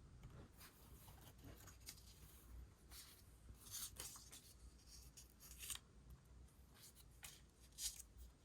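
Paper stationery being handled for journal collage: a faint, irregular series of short crisp rustles and scratches, with sharper ones about halfway and near the end.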